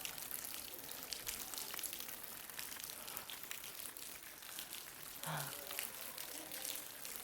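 Thin waterfall falling and splashing onto rock, a steady hiss full of small drips; the fall is low after a dry spell. About five seconds in, a brief voice sound.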